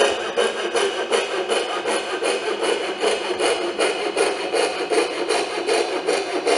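Coping saw cutting a curve in a wooden board in rhythmic, even back-and-forth strokes, the fine blade's teeth cutting the wood under light pressure.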